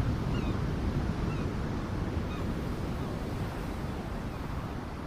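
Wind buffeting the microphone, mixed with motorcycle and traffic noise, while riding through dense city traffic, gradually getting quieter.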